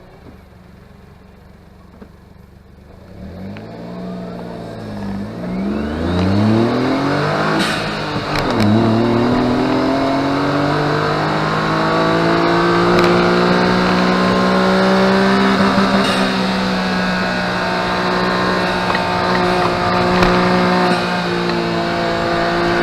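Honda S660's small three-cylinder turbo engine pulling away from low revs. Its pitch climbs and drops through several quick upshifts in the first several seconds, then it runs steadily at high revs under load.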